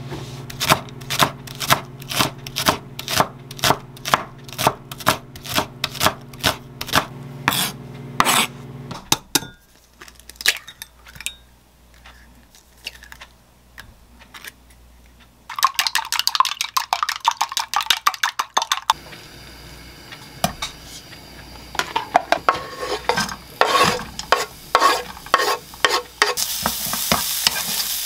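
Chef's knife slicing a leek on a wooden cutting board, steady chops at about two a second for the first nine seconds or so. After a quiet spell, eggs are beaten briskly in a glass cup for a few seconds. Then come knocks of a wooden spatula in a frying pan, and near the end sliced leek starts sizzling in oil.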